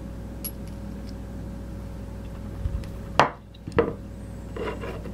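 Small metal parts of a CyberHammer piano tuning hammer being handled and set down on a wooden board: two sharp clicks a little past three seconds in, over a steady low background hum.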